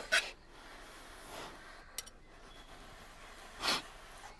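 Quiet mealtime sounds: a short breathy puff at the start and another about three and a half seconds in, with a single light clink of cutlery on a plate about two seconds in.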